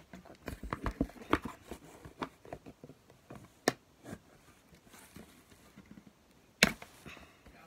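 Cardboard packaging being handled as a plastic model horse is worked free of its box insert: irregular rustles, taps and scrapes, with a sharper knock near the end.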